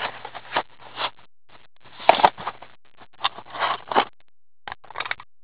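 A cardboard box of Panini Draft Prospects hockey cards being opened by hand: cardboard scraping and plastic wrapping crinkling in a series of short rustling bursts.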